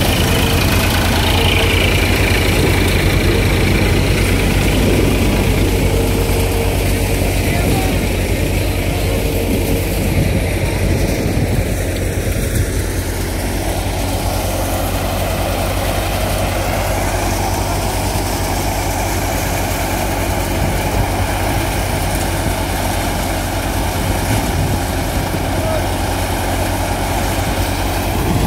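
Sonalika 50 RX tractor engine running steadily, driving a Harper thresher that is threshing chickpea plants, with a constant low hum.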